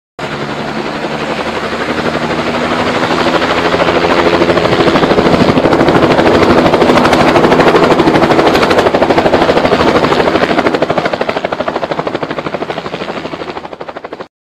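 Helicopter flying past: a fast rotor chop that swells to its loudest about halfway through, fades away, then cuts off abruptly near the end.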